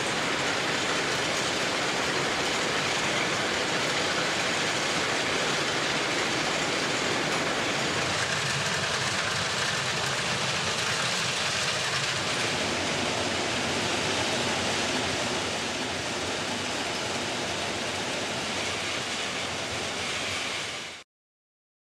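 URM 700-2 ballast cleaning machine at work on the track: a steady, dense rush of mechanical noise and clatter from the excavating unit, screens and conveyors handling ballast stones. It eases slightly in level late on, then cuts off abruptly near the end.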